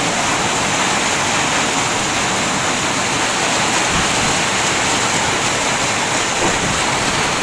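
Heavy storm rain pouring down steadily, mixed with small hailstones, in a dense even hiss.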